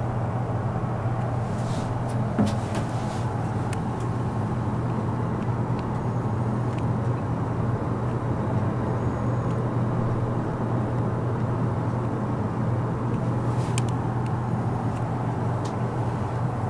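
Steady low mechanical hum with an even rushing noise, and a few faint clicks about two seconds in and again near the end.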